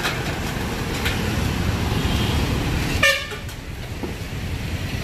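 Street traffic passing with a steady low engine rumble, about three seconds in cut by one brief sharp sound.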